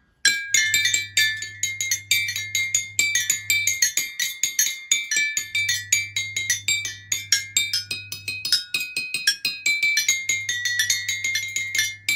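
Children's toy xylophone with painted metal bars, struck quickly with two mallets to play a tune: many short, bright, ringing high notes, several a second.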